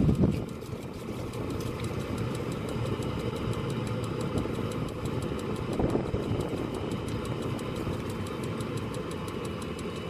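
Eberspächer Hydronic D5WS diesel parking heater running on test: the newly fitted fuel dosing pump ticking steadily, about five clicks a second, over the steady hum of the heater with a faint high whine.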